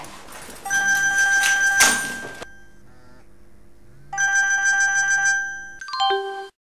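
A telephone ringing: two long rings separated by a pause of about a second and a half, over faint music. It stops abruptly near the end.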